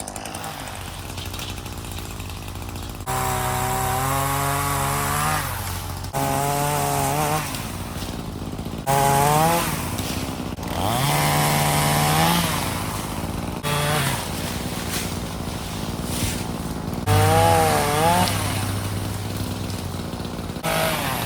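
Gas chainsaw cutting limbs, revving up and falling back toward idle again and again in several separate bursts.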